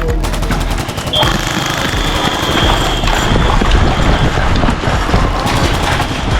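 Airsoft gunfire in rapid bursts, heaviest in the first second, over a constant noisy background of field activity and voices.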